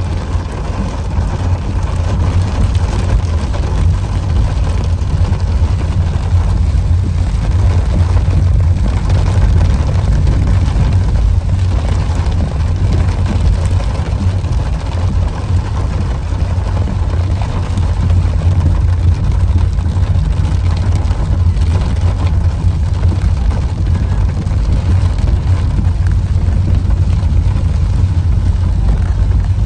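Heavy rain falling on a car's roof and windscreen, heard from inside the cabin while driving, over a steady low rumble of the car moving along a wet road.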